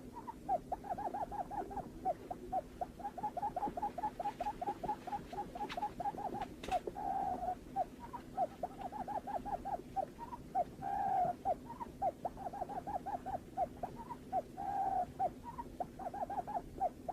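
Barred buttonquail call: a rapid series of short, low hooting notes, about five a second, broken every few seconds by a longer drawn-out note. It is the call used as a lure to bring the birds in.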